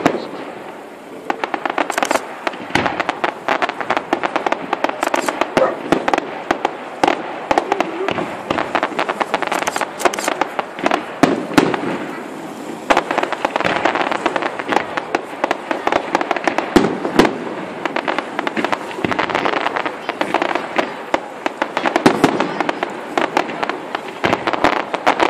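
Fireworks display: a rapid, near-continuous run of bangs and crackling as shells burst one after another.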